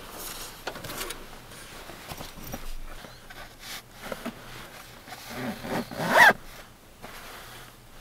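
A zipper pulled in one quick stroke about a second long, rising in pitch, near the end, among small rustling and clicking handling noises.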